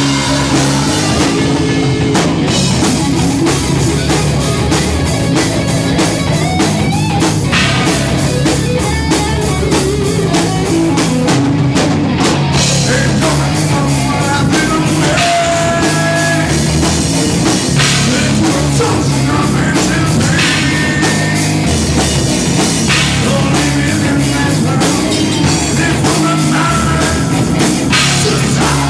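Live rock band playing loudly and without a break, with guitar and a drum kit.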